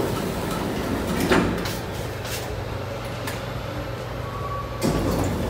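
Passenger elevator running with a steady low hum, with a sharp click about a second in and its sliding doors opening.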